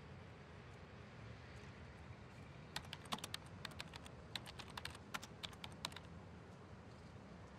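Typing on a computer keyboard: a quick, irregular run of key clicks from about three seconds in until about six seconds in, over a faint low room hum.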